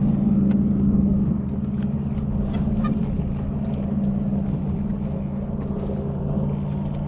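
A boat motor humming steadily at low pitch, with short, repeated bursts of high whirring from a spinning reel as a hooked fish is played on ultralight tackle.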